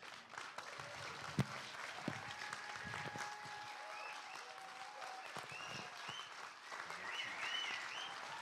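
Audience applauding, breaking out all at once after the end of a chanted song. Short rising-and-falling high calls sound over the clapping in the second half.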